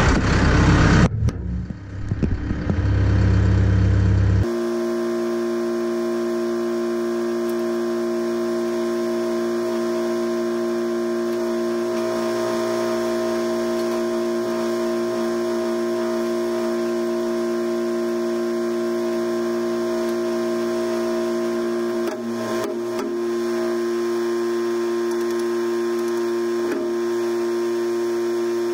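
An engine runs for the first few seconds. Then comes a steady electric hum, several fixed tones held without change, from a fuel transfer pump filling the Genie Skytrak telehandler's tank through the nozzle.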